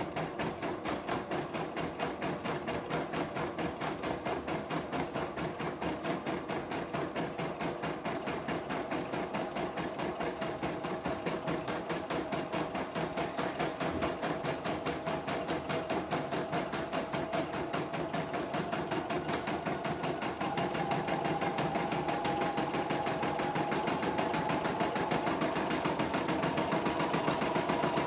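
CNY E960 computerised embroidery machine stitching a design in embroidery mode: a fast, even needle clatter over the hum of its motor. It gets slightly louder and a little higher in pitch about two-thirds of the way through.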